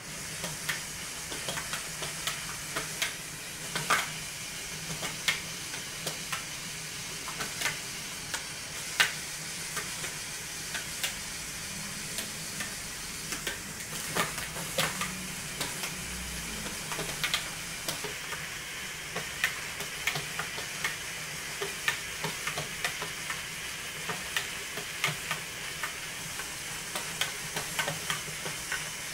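LEGO Technic walking robot running on its electric motor: a steady whir from the motor and plastic gears, with irregular sharp plastic clicks, about one or two a second, as the banana-gear legs mesh and step on the tabletop.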